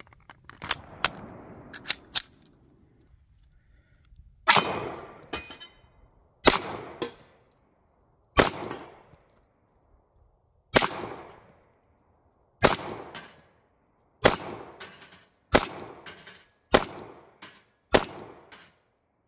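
Stoeger STR-9 9mm striker-fired pistol fired at a slow, aimed pace: about nine shots, one to two and a half seconds apart, starting about four seconds in, each with a short echo. A few sharp clicks come before the first shot.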